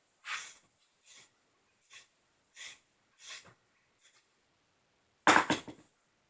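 Socket wrench worked on a BMX bike bolt: a short rasp about every three-quarters of a second as the wrench is stroked back and forth, then a louder clatter of sharp knocks about five seconds in.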